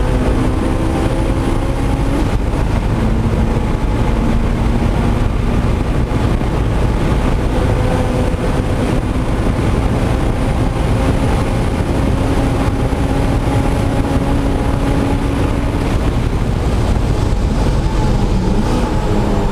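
Supercharged Honda S2000's four-cylinder engine running hard at track speed, heard from inside the cabin over loud road and wind noise. The engine note holds fairly steady, shifting in pitch a few times, with a dip near the end.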